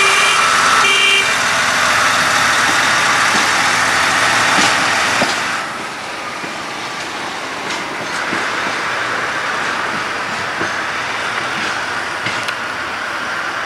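SM42 diesel shunting locomotive running as it passes close by, with two brief high tones near the start. After a sudden drop in level about six seconds in, its engine is heard more distantly as it moves off.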